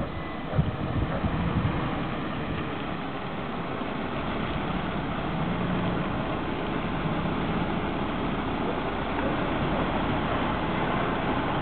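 Diesel engine of a MAN heavy-haul tractor unit pulling a loaded low-loader trailer, running at low speed as the truck drives closer, growing gradually louder.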